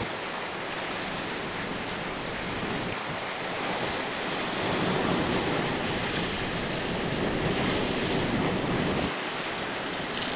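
Storm-driven surf breaking and washing up the shore, a steady rush of water that swells a little in the middle, with wind.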